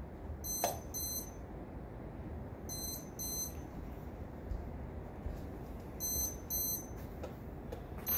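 A lightning detector beeping in pairs: three double beeps, each pair the signal of a lightning strike within 15 miles. Steady rain hiss underneath.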